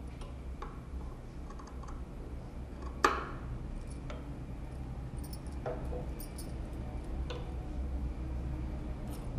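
Scissors cutting off the excess binding strip: a few sharp snips a second or more apart, the loudest about three seconds in.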